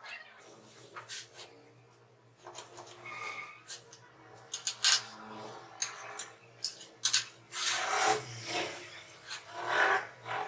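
Irregular scraping and rubbing on wood, with scattered sharp clicks and knocks; the longest, loudest scrapes come near the end.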